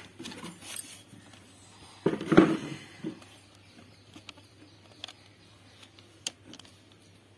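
Fingertips tapping and brushing on a paper sheet as picked lice and nits are pushed into place: faint scattered ticks, with one louder rustle about two seconds in.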